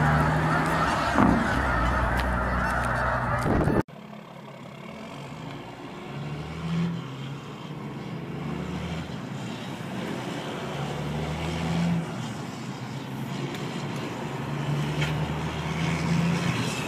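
Kenworth roll-off truck's diesel engine running loud and close with a low, steady drone. About four seconds in the sound cuts to a much quieter engine drone, heard from inside a car following the truck, swelling now and then.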